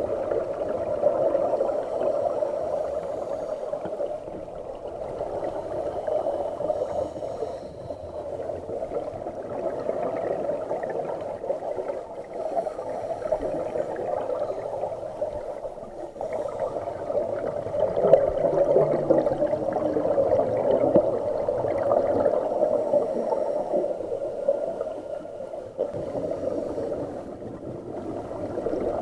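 Scuba regulator exhaust bubbles gurgling underwater as the diver breathes, swelling and fading every few seconds.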